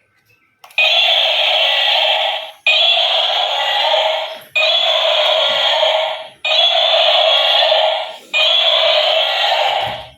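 A loud electronic sound repeated five times in a row, each lasting nearly two seconds with a brief break between.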